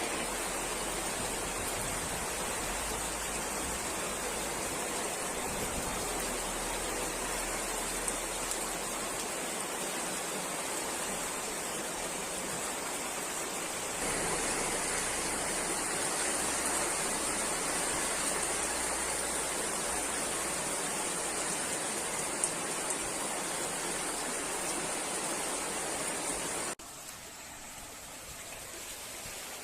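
Steady rushing noise of floodwater and heavy rain during a flash flood. The sound changes abruptly about halfway through and drops much quieter near the end.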